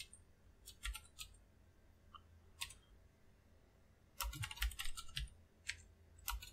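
Computer keyboard keystrokes, faint: a few scattered single key clicks, then a quicker run of several keystrokes about four seconds in, as a line of code is typed.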